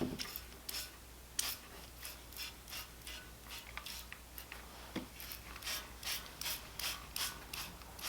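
Faint, quick rasping strokes, about two to three a second, as an old outboard motor's housing is cleaned by hand with degreaser.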